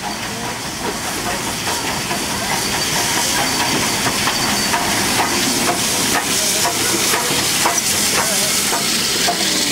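Steam locomotive hissing loudly as it lets off steam, a steady hiss that grows louder over the first couple of seconds, with faint clicks through it.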